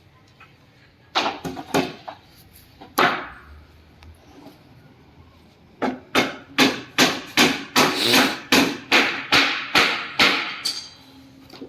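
Hammer blows on wood: a few scattered strikes, then a steady run of about three blows a second, typical of nailing a sofa's wooden frame.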